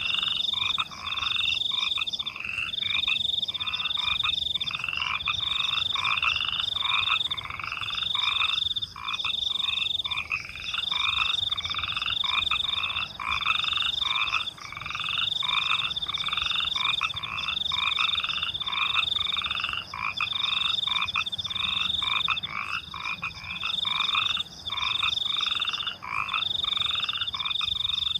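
A chorus of frogs croaking in rapid repeated calls, about two a second, over a continuous high-pitched cricket trill that runs in long stretches with short breaks.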